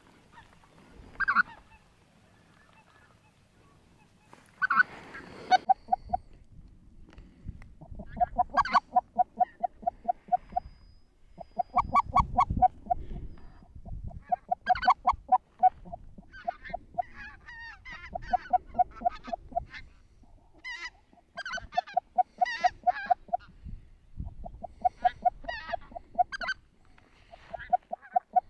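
Geese honking: quick runs of honks at one even pitch, several a second, repeated every second or two. Higher yelping flock calls join in from about the middle.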